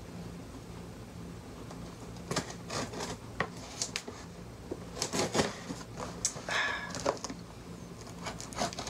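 Knife blade scraping and cutting along the tape and edges of a cardboard box, with scattered clicks and taps from handling the box and a longer scrape about two-thirds of the way through.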